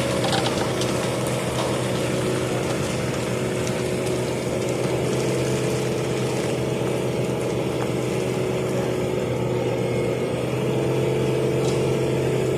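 An engine running steadily at an even speed, its pitch shifting slightly about ten seconds in.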